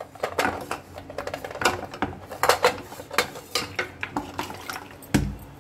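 Lumps of jaggery dropped one by one into an aluminium saucepan, knocking and clattering irregularly against the metal. There is a heavier thump near the end.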